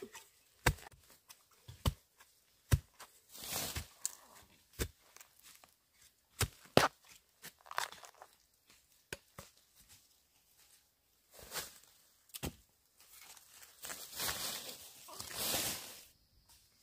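Irregular sharp knocks and clicks of things being handled, with several short rasping, tearing noises, the longest near the end.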